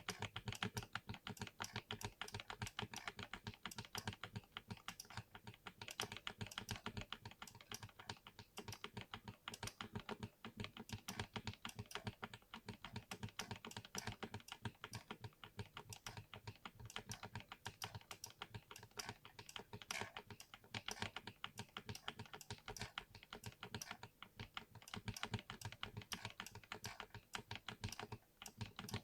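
Continuous fast typing on a mechanical keyboard with hand-lubed switches: a dense, unbroken run of keystrokes.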